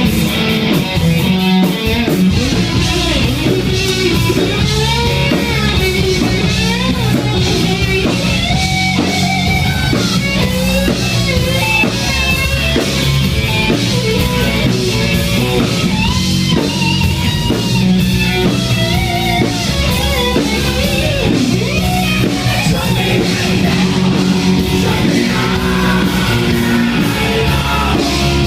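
A rock band playing live: guitar over bass and drum kit, loud and continuous, with some singing.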